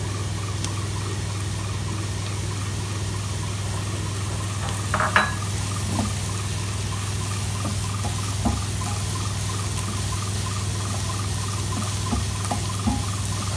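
Potatoes, onions and shredded cabbage sizzling in oil in a frying pan, with a few knocks and scrapes of a plastic spatula against the pan as the vegetables are stirred, the loudest about five seconds in. A steady low hum runs underneath.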